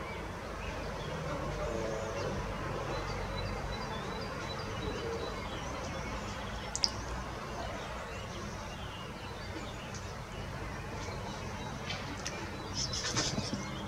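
Outdoor rural ambience with faint distant birdsong, thin high chirps on a steady low background rumble. A single sharp click comes about seven seconds in, and a short burst of louder rustling noise comes near the end.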